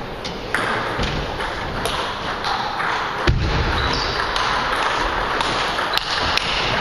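Table tennis ball making sharp clicks off the rackets and table during a serve and the start of a rally. A single heavier, dull thump comes about halfway through, over steady background noise.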